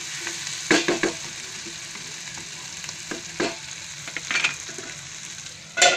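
Boiled potato pieces sizzling steadily as they fry in ghee in a kadhai, with a wooden spatula scraping through them a few times. Near the end a metal lid clanks down onto the pan and rings briefly, and the sizzle drops.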